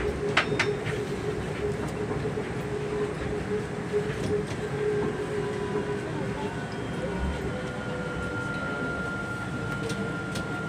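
Soekarno-Hatta Airport Skytrain running, heard from inside the car: a steady rumble with a humming tone that gives way to a higher steady whine about seven seconds in. A couple of sharp clicks come just after the start.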